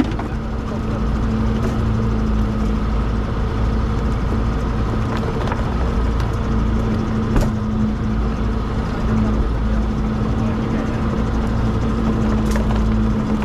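Fishing boat's motor running steadily with a constant low hum, with a few short sharp knocks.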